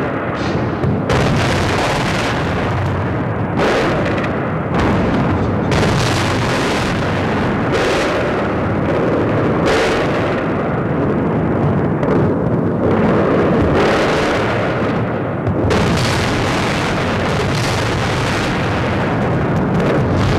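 Aerial bombs exploding: a continuous heavy rumble broken by sharp blasts every few seconds, heard through a live news microphone.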